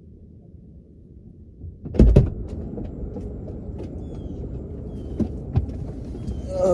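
BMW SUV's doors unlatching and opening with a loud double clunk about two seconds in, then thumps and rustling as two people climb into the front seats, over a low steady rumble.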